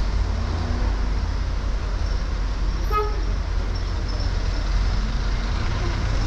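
Steady low rumble of city street traffic, with a single short horn toot about three seconds in.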